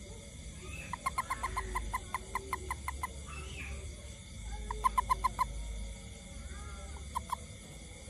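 Toad held in the hand, giving trains of short chirping pulses at about six a second: one bout of about two seconds, a shorter one around the middle, and a brief pair near the end. This fits the release call a toad gives when grasped behind the front legs.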